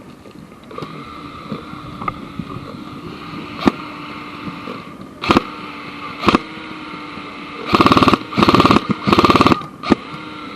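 Airsoft guns firing: a few single shots, then three rapid full-auto bursts close by near the end, over a steady hum.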